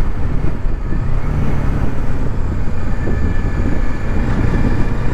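Motorcycle engine running steadily at road speed, a steady low hum under a dense rush of wind noise.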